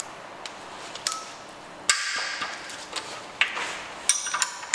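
Scattered metal clicks and clinks of a 15mm spanner being worked on the timing-belt tensioner bolt, with a sharper knock about two seconds in and a quick cluster of clicks with a brief metallic ring near the end.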